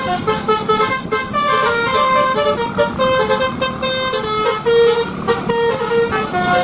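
Basuri-type telolet bus horn playing a quick multi-note tune, its tones jumping from pitch to pitch over steady background noise.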